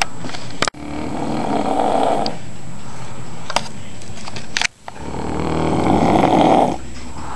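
Heavy snoring from someone asleep: two long snores of about two seconds each, a few seconds apart, with quieter breathing and a sharp click between them.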